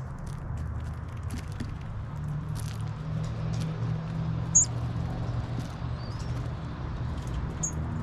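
Two short high chirps and a brief rising whistle, over scattered light clicks and a steady low rumble.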